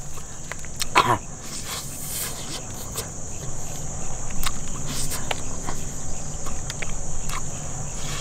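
Crickets chirring steadily in one even high band, with scattered small clicks and smacks from a man chewing food. A brief voiced murmur comes about a second in.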